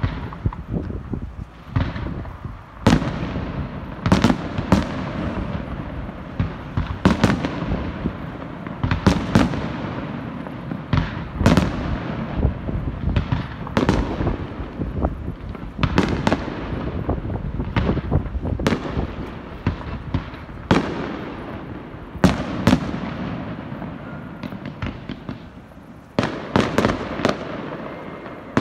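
Fireworks display: aerial shells bursting in a rapid series of loud bangs, one every second or two, with crackling and rumbling echoes between them.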